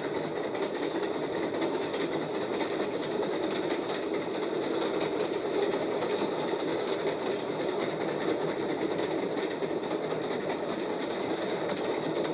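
Freight train wheels clanking and rattling over the rails in a steady, rapid clatter.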